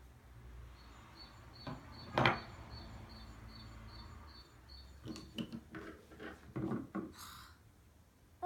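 Scattered knocks and clattering taps, with a cluster of them in the second half, against a short high chirp that repeats about twice a second for a few seconds.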